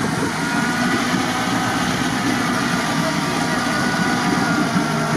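Off-road 4x4 engine running at a steady, unchanging pitch.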